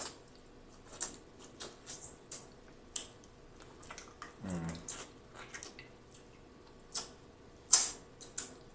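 Close-miked eating of boiled crawfish: scattered wet mouth smacks, sucking and small shell clicks, with a brief hum about halfway and a louder smack near the end.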